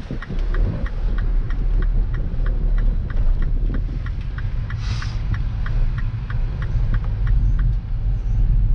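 Inside a MINI Cooper's cabin on the move: low, steady engine and road rumble, with the turn-signal indicator ticking about three times a second as the car turns. A brief hiss about five seconds in.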